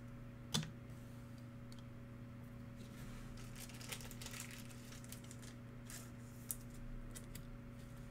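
Trading cards and a plastic card holder being handled: a sharp click about half a second in, then soft rustling and light clicks as cards are sorted, over a steady electrical hum.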